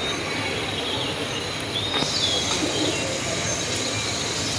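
Steady rushing background noise of a public aquarium hall, with faint distant visitors' voices.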